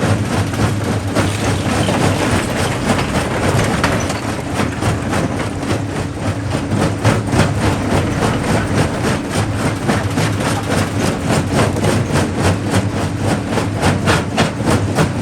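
Jaw crusher running at a quarry: a steady low machine hum under a rapid, dense clatter of rock being broken and knocking through the crusher.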